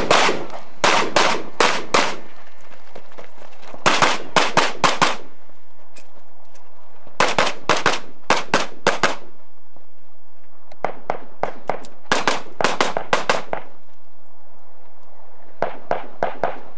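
Handgun shots fired in rapid strings: quick groups of about four to ten shots, roughly three a second, broken by pauses of one to two seconds, as the shooter moves between target arrays.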